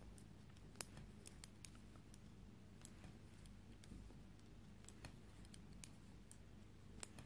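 Faint, irregular clicks of knitting needles tapping together as stitches are worked by hand in wool, over low room hum.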